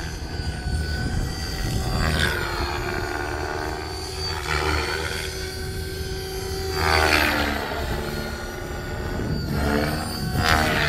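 KDS 600 radio-controlled helicopter flying aerobatics overhead: its rotor and drivetrain whine sweeps up and down in pitch as it manoeuvres, growing loudest on passes about two, seven and ten and a half seconds in.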